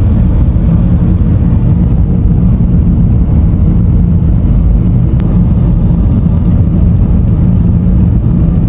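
Car driving at speed: a steady, loud low rumble of road and engine noise, as heard inside the cabin.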